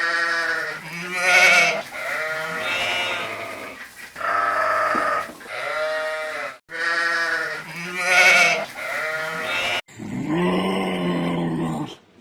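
Bleating livestock: a run of loud, quavering bleats of about a second each, one after another. Near the end comes a lower, drawn-out call.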